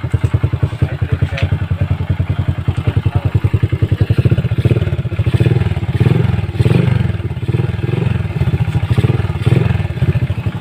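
Freshly overhauled Honda XRM 125 single-cylinder four-stroke engine running, a fast, even low pulsing. In the second half its sound swells and falls several times.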